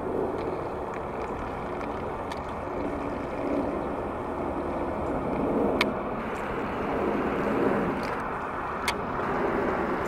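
Steady rumble of road traffic, swelling a little toward the end, with two sharp clicks about three seconds apart in the second half.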